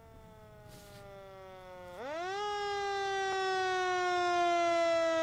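Recorded fire-engine siren played over studio speakers: a wail that slowly falls in pitch, swoops sharply up about two seconds in and grows louder, then slowly falls again.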